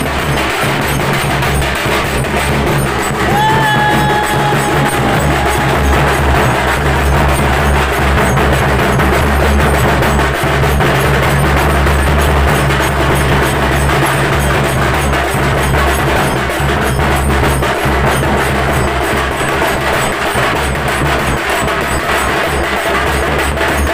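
Two-headed barrel drums played by hand in a fast, dense, steady beat for a Naman folk dance, with one held high note about three seconds in.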